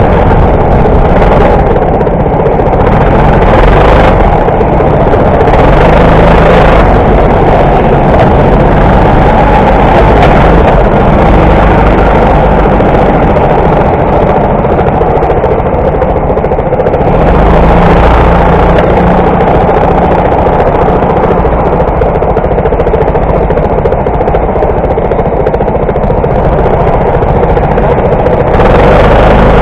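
Go-kart engine running loud and close, heard from onboard the kart as it drives the track, with the sound changing around the middle and picking up again near the end.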